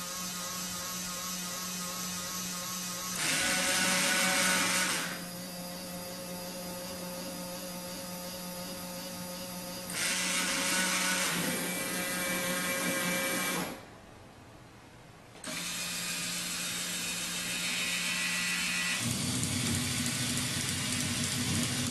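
Small electric gear motors of a model factory whirring as its conveyors and gantry robot arms move, starting and stopping in turn. There are two louder spells of motor whine, a short drop in level about two-thirds of the way through, and a lower hum near the end.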